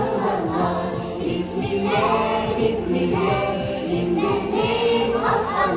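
A children's song in French, sung by a group of young girls in chorus over backing music with a steady beat.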